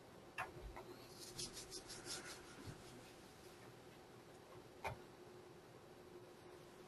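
Near silence with faint desk-handling sounds: a couple of small clicks, a quick run of light ticks and rubs about a second and a half in, and one sharper click about five seconds in.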